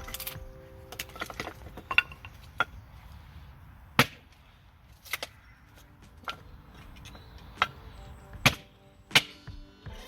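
A series of sharp knocks, irregular and roughly one every second or so, with background music faint between them.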